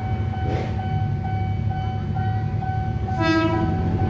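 Level-crossing warning bell ringing as a steady electronic tone repeating about twice a second, over a low rumble. About three seconds in, a child exclaims "waw".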